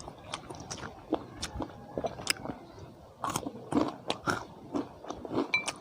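A person biting and chewing crunchy food close to the microphone, with irregular sharp crunches several times a second.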